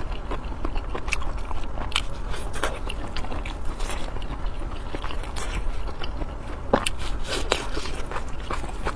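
Close-miked eating: a person biting and chewing food, with irregular sharp mouth clicks, the loudest about seven seconds in.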